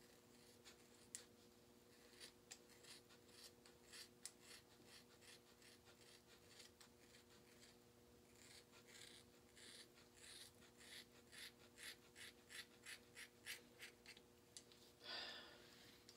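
Scissors snipping again and again through a thick dreadlock, a quiet run of short crunchy cuts about two or three a second, with a brief louder rustle near the end. A faint steady hum lies underneath.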